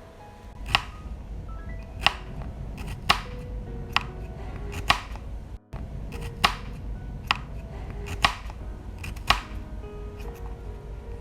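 Background music with a small knife chopping on a cutting board: nine sharp knocks about a second apart, with a brief break a little past halfway.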